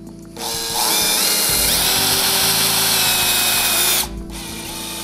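Cordless drill-driver running for about three and a half seconds, driving a drywall screw through a plasterboard patch into the metal profile behind it. Its pitch rises once before holding steady, and it stops suddenly.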